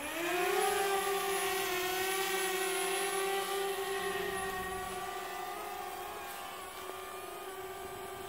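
Small quadcopter drone's propellers spinning up with a quick rising whine as it lifts off from a hand, then a steady high-pitched buzz as it climbs and hovers, easing off slightly toward the end.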